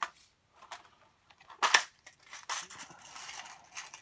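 Plastic packets of hackle feathers crinkling and rustling as they are handled, in short bursts of crackle with one sharper, louder crackle about a second and a half in.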